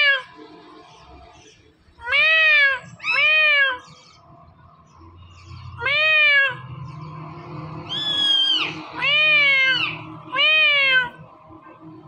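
Indian ringneck parrot mimicking a cat's meow: about six separate meows, each rising then falling in pitch, with one higher, falling call about eight seconds in.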